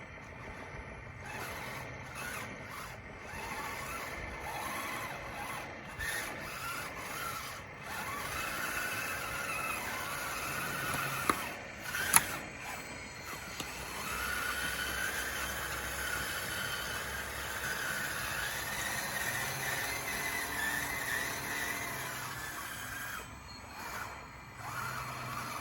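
DXR2 RC bulldozer working, its drive giving a wavering high whine and squeal that rises and falls in pitch. Two sharp clicks come about halfway through.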